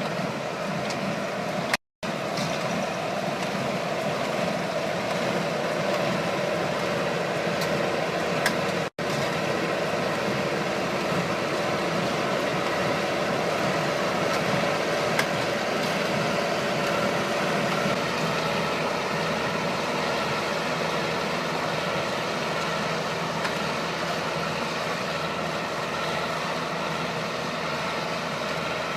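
A machine's engine running steadily. The sound cuts out briefly twice, about two seconds and nine seconds in.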